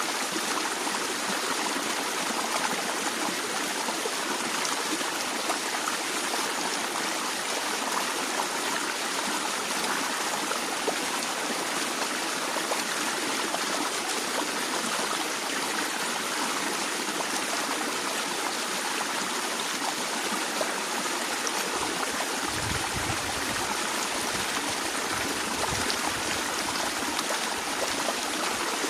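Stream water flowing steadily, an even rushing and splashing with no pauses. A faint low rumble comes in briefly about two thirds of the way through.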